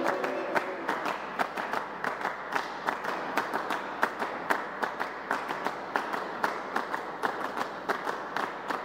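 Audience applauding: many hands clapping together, with single louder claps standing out about twice a second.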